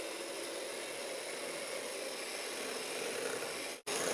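Electric hand mixer running steadily, its beaters whirring through a cake batter of creamed butter, sugar and eggs. The sound cuts out briefly near the end.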